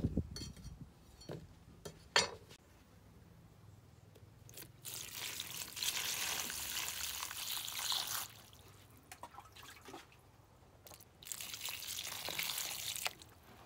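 A thin stream of water pouring onto broccoli florets, baby corn and carrot in a plastic basin, rinsing the vegetables. It comes in two pours, one of about three seconds and a shorter one near the end, with a sharp click about two seconds in.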